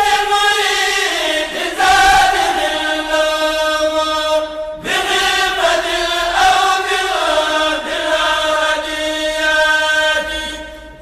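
Chanted vocal music in long held notes that step from one pitch to the next, with a short break about five seconds in and a fade near the end.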